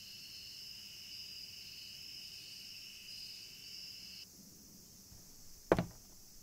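Crickets chirping steadily, a high even trill that cuts off suddenly about two-thirds of the way through. Near the end comes a single sharp footstep on the floor.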